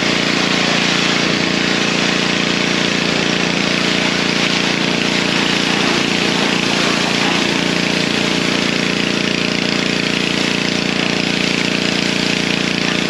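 Pressure washer running steadily: the even hum of its motor under the loud hiss of the water jet spraying on a car's body and wheel.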